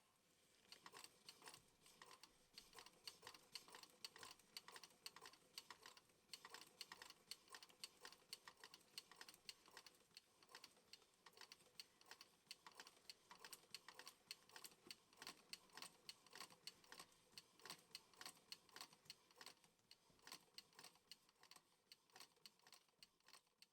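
Restored Singer 15-class sewing machine running, its mechanism clicking in a fast, even rhythm, faint. It now turns freely after the hardened old oil was cleared.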